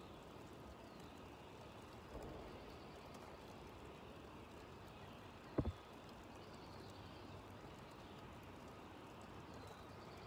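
Faint distant birdsong, a few short high notes now and then, over a quiet outdoor hush. A sharp double knock stands out about halfway through.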